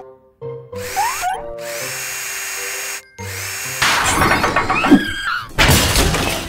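Upbeat children's cartoon music, joined about four seconds in by cartoon power-drill whirring as a truck wheel is spun, with a loud rushing burst near the end.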